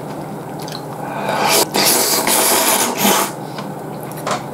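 A person slurping ramen noodles loudly: one long wet slurp of about two seconds starting about a second in, with a brief break partway through.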